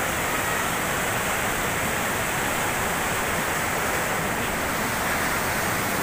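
Loud, steady rush of a rocky mountain stream running over boulders and small cascades, white water tumbling.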